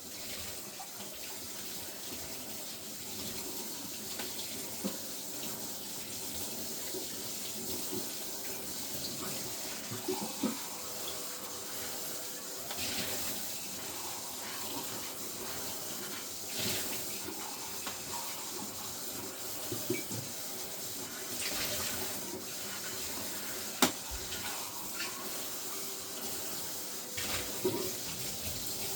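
Vacuum cleaner running with a steady airy noise, with scattered light bumps and one sharp click near the end.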